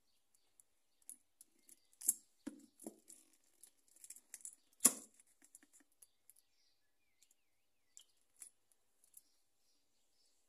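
Scattered quiet clicks, taps and small knocks of a plastic squeeze bottle being handled and squeezed over a gravel-covered board, with the sharpest clicks about two and five seconds in.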